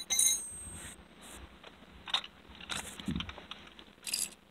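Handling clatter of tools on a concrete step: an angle grinder being picked up and metal ratchets moved about, giving scattered clicks and knocks. The loudest is a sharp metallic clack with a brief ring near the start.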